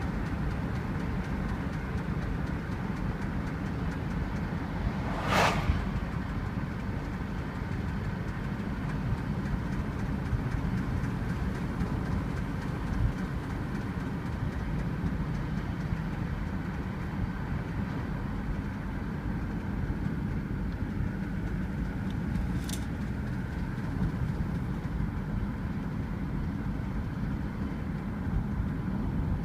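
Subaru driving, with steady engine and road noise heard inside the cabin. Two short sharp clicks stand out, about five seconds in and again past twenty seconds in. The owner is chasing a faint, sporadic tapping from the car that is hard to pick out under the road noise.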